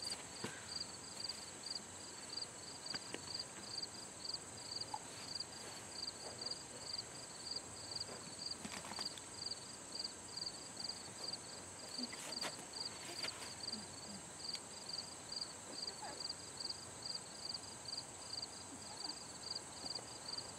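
Insects chirping in a steady summer chorus: a continuous high buzz with a pulsing chirp about twice a second, and a few faint knocks.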